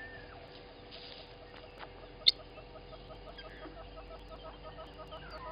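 Helmeted guineafowl scratching and kicking through dry elephant dung, making faint rustling and scattering sounds, with one sharp click about two seconds in.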